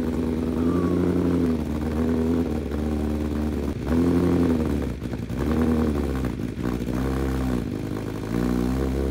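2023 BMW M1000RR's inline-four engine running through a freshly fitted Akrapovic titanium header and SC Project slip-on exhaust with the catalytic converter removed, being blipped: a series of short throttle blips, the note rising and falling about once a second.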